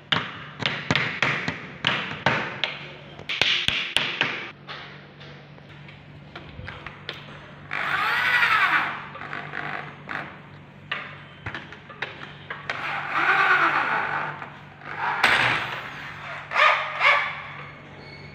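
A soft-faced mallet knocks a quick series of times on frame-fixing screws in a UPVC window frame. Then a cordless drill drives screws into the arched frame in several runs a few seconds apart, its motor speeding up and slowing down each time.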